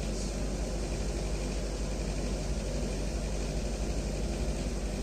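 A steady low machine hum with a fainter hiss, unchanging throughout, like an air conditioner or similar running machine.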